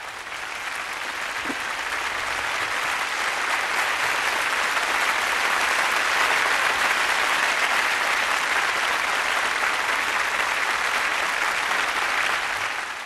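Audience applauding: a dense clapping that builds over the first few seconds, holds steady, and cuts off at the end.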